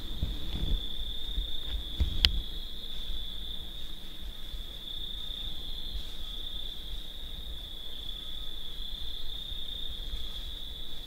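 Steady high-pitched insect chorus trilling without a break, with a single sharp click about two seconds in and some low rumbling thumps in the first couple of seconds.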